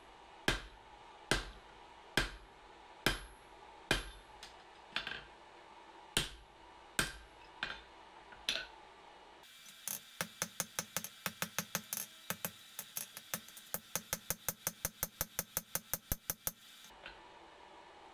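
Hand hammer forging a piece of spring steel on an anvil. The blows come about once a second, each with a brief high ring. About halfway in they change to a faster run of about four to five blows a second.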